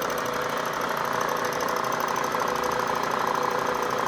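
Milling machine running with a boring head cutting the bore of a router base under power feed: a steady mechanical whir with a fine, rapid ticking, and a higher steady tone coming in about a second and a half in.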